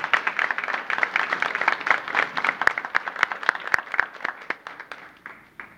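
A seated audience applauding, with many hands clapping at once; the clapping thins out and dies away near the end.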